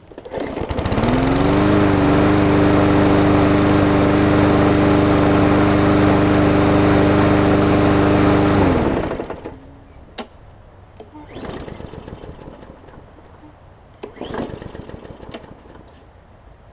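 A push mower's overhead-valve Briggs & Stratton engine is pull-started and catches at once, rises to a steady run for about eight seconds, then is shut off and winds down. The engine runs cleanly after water was cleared from its plastic carburetor. Afterwards there is a single click and some fainter handling noises.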